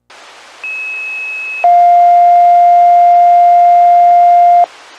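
Two-tone sequential fire pager alert tones heard over a VHF low-band scanner radio. A steady higher tone holds for about a second, then a louder, lower tone holds for about three seconds and stops abruptly, over the steady hiss of the open radio channel.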